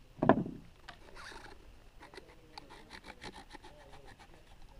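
Small hand tool working the saddle clamp of a bicycle seatpost to take the saddle off: a sharp knock just after the start, a brief scrape, then a quick, even run of light metal clicks.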